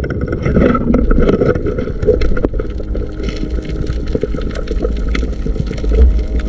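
Underwater noise heard through a camera housing: a steady low rumble with many scattered clicks and knocks, and no music or voice.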